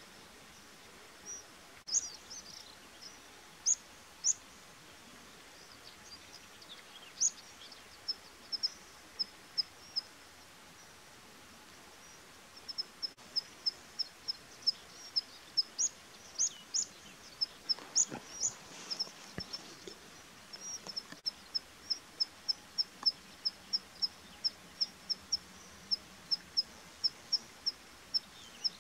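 A small bird calling with short, high chirps, scattered at first, then repeated steadily about twice a second through the second half, over a faint outdoor background.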